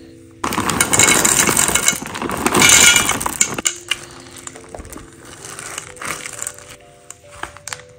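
Chocolate chips poured into a stainless steel mixing bowl, a loud rattling patter lasting about three seconds. A silicone spatula then stirs them into the cookie dough with scattered soft clicks and scrapes.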